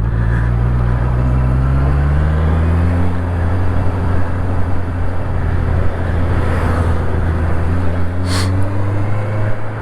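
Honda CB650R's inline-four engine running under way, its pitch rising a little over the first few seconds, holding steady, then easing off near the end, over road and wind noise. A brief hiss comes about eight seconds in.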